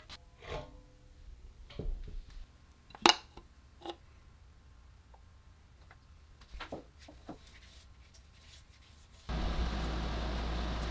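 Sparse light clicks and taps of metal fittings and parts being handled and removed from a steel compressor tank, with one sharp click about three seconds in. Near the end a steady low hum with hiss starts abruptly.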